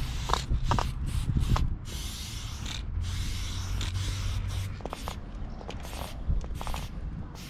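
Aerosol spray paint can hissing: several short bursts, then one long spray of about three seconds, then more short bursts.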